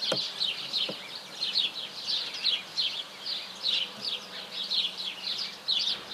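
Small birds chirping continuously: a dense run of quick, high, downward-sliding chirps repeating a couple of times a second.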